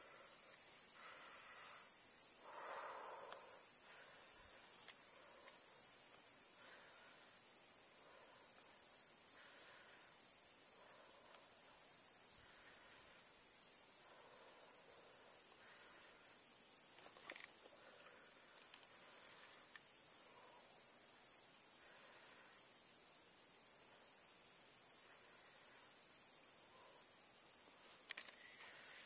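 A steady, high-pitched chorus of insects, crickets or cicadas, shrilling without a break, with a few faint short chirps over it in the middle.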